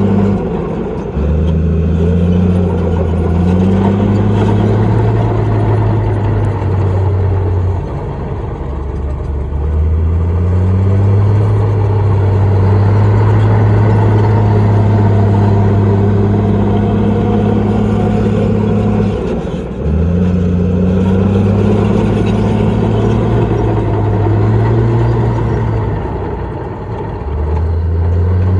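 Heavy diesel engine of a Komatsu bulldozer working, its pitch rising and falling as it revs, with brief dips in engine speed about a second in, about a third of the way through, about two-thirds through and near the end.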